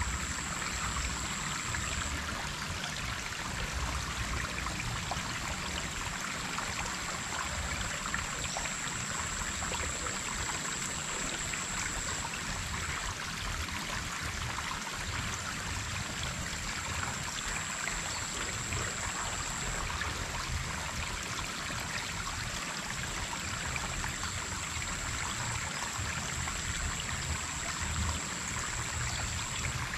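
Steady rushing and trickling of water flowing in a small, shallow irrigation stream.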